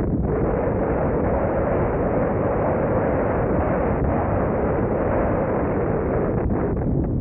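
Steady rush of wind over the microphone of a moving car, with engine and road noise underneath.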